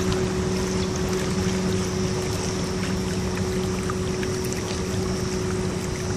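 Kayak moving under a small motor: a steady, even hum with a thin constant whine, over water splashing and lapping at the hull in choppy wake.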